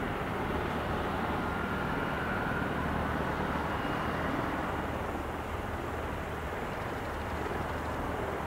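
Mil Mi-28N attack helicopter's twin turboshaft engines and main rotor running steadily as it taxis on its wheels along the runway, shortly before lift-off.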